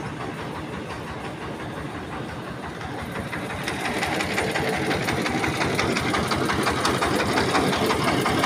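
A small engine running with a rapid, even knocking beat. It grows louder about halfway through.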